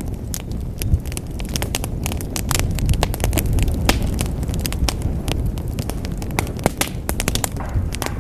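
Wood fire burning in a fireplace: frequent, irregular sharp crackles and pops, several a second, over a steady low rumble.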